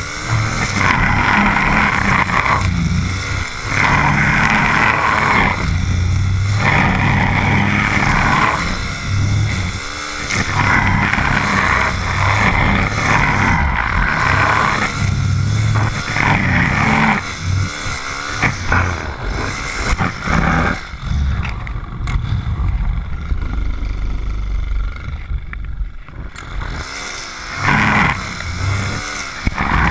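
Stihl FS 130 brushcutter's small 4-MIX engine revving up and dropping back every couple of seconds as it cuts grass. Near the end it settles lower for several seconds, then opens up again.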